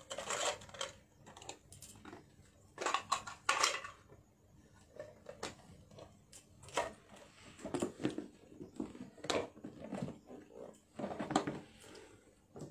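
Irregular light clicks, clinks and rustles of jewellery and bangles being handled and put away, loudest about three seconds in and again near the end.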